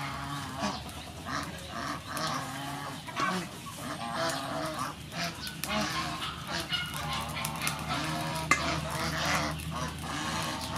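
Domestic geese honking over and over, the calls overlapping from several birds. One sharp tap sounds about eight and a half seconds in.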